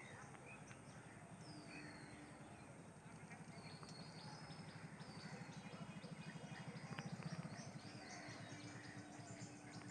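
Small birds chirping and twittering in quick, short calls over a faint low rumble that pulses rapidly, swells about seven seconds in, then eases off.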